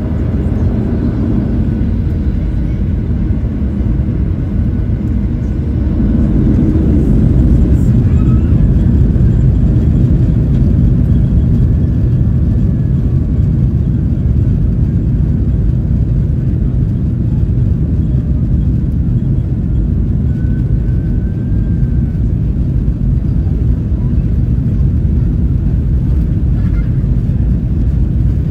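Jet airliner cabin noise while taxiing: a steady low rumble of the engines and the rolling aircraft heard from a window seat, growing a little louder about six seconds in.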